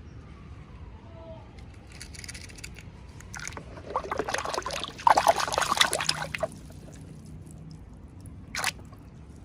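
Packaging being handled and opened close to the microphone: a run of crinkling and rustling that builds about halfway through and is loudest for a second or so, then a short sharp crackle near the end.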